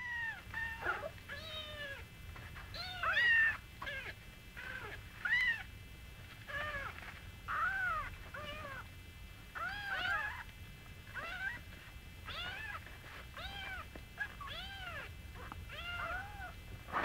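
Singapura kittens mewing over and over: short, high calls that rise and fall in pitch, about one a second.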